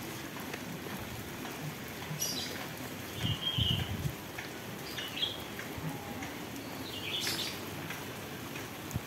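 Steady rain falling, with short bird chirps every second or two and a few low thumps about three and a half seconds in.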